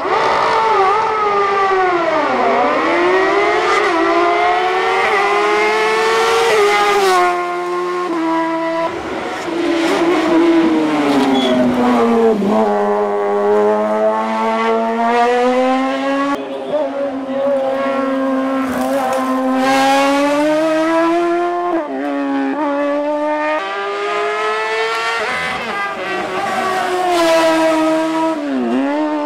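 Silver Car S2 hillclimb racing car's engine at full throttle, the pitch climbing hard and dropping sharply at each gear change, with several dips and recoveries where it slows for bends and accelerates away again.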